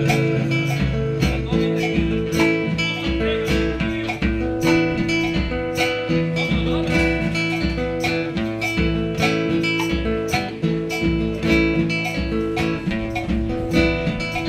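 Instrumental break of a live song: an acoustic guitar strummed in a steady rhythm, with hand drums and percussion keeping the beat and no singing.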